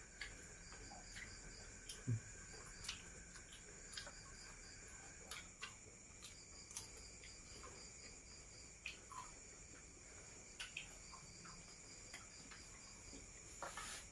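Steady chirring of crickets and other insects, with a pulsing trill that comes and goes in runs. Faint scattered clicks and taps sound over it.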